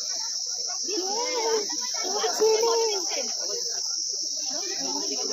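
Steady, high-pitched buzzing chorus of insects, with indistinct voices in the background.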